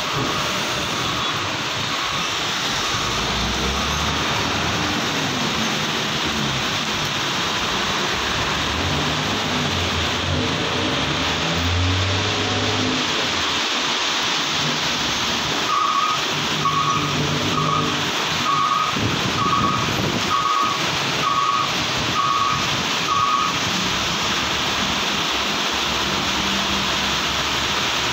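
Heavy diesel trucks driving past on a wet road in rain, tyres hissing on the wet surface and engines running, over the steady patter of rain. A repeated electronic beep, about one a second, sounds at the start and again for several seconds in the middle.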